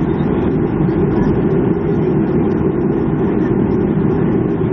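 Steady cabin noise inside a Boeing 737-300 on the ground after landing, its CFM56 engines running at idle, with a strong low hum and no change in level.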